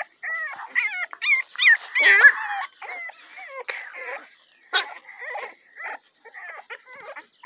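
American Bully puppies whining and yelping in quick high-pitched calls, several a second, loudest in the first few seconds, then fainter and more scattered. A single sharp click comes a little past the middle.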